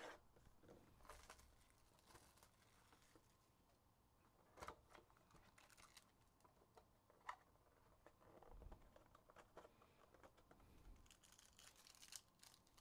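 Faint rustling and tearing of a foil trading-card pack wrapper as it is opened, with a few soft clicks and scratches from cards and the box being handled.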